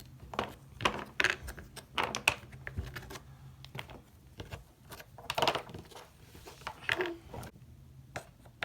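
Wooden alphabet puzzle pieces being pulled off a wooden peg board and knocked together, making irregular clicks and clatters, some in quick clusters.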